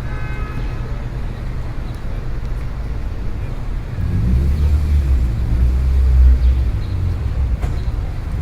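Street ambience: a steady low traffic rumble that swells louder and deeper from about four to seven seconds in. A brief high-pitched tone sounds in the first second.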